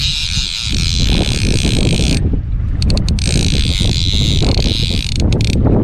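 A fishing boat's diesel engine running steadily under way, a dense low rumble. Above it is a hiss that drops out briefly twice.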